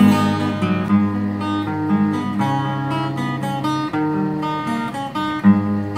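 Solo acoustic guitar playing chords between sung lines, the notes ringing on and changing every half second or so.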